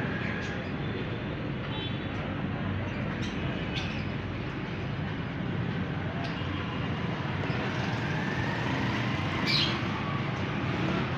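A few short, high chirps from cockatiels, twice around three to four seconds in and once more loudly near the end, over a steady background rumble like distant traffic.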